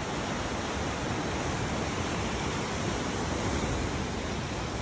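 Sea surf churning and breaking against dark rock cliffs in a narrow coastal inlet: a steady, unbroken rush of water noise.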